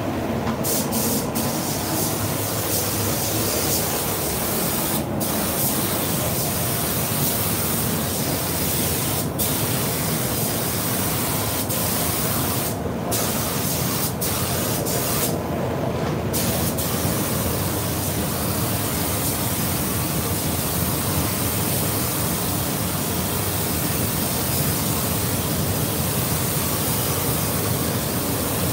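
Compressed-air gravity-feed spray gun hissing steadily as it sprays coating onto a car body. The hiss thins out briefly a few times, at the breaks between passes.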